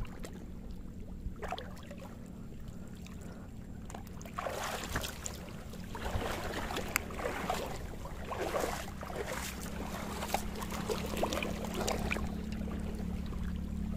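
A steady low hum runs throughout. From about four seconds in it is joined by irregular rustling, scraping and wet splashing as a freshly caught squid is handled over wet rocks.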